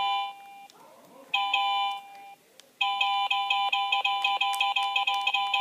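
Electronic beeping tones from a LeapFrog My Own Leaptop toy laptop's speaker, all at one fixed pitch. There is a short beep, then one of about a second, then from about three seconds in a continuous tone that stutters rapidly several times a second.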